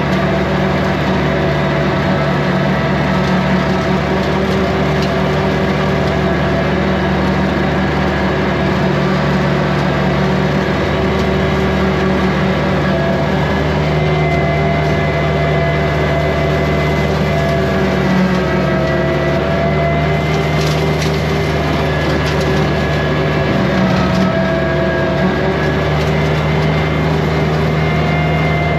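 Kubota compact tractor's diesel engine running steadily under load while it drives a rotary brush cutter, with its pitch shifting slightly now and then.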